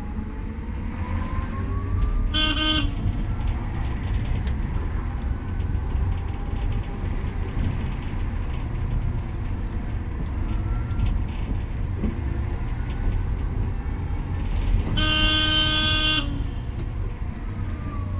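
Golden Dragon Astar electric city bus on the move, heard from inside: the electric traction motor's whine rises in pitch as the bus accelerates, over a steady road rumble. A vehicle horn toots briefly about two and a half seconds in and again for about a second around fifteen seconds in, and near the end the whine falls as the bus slows.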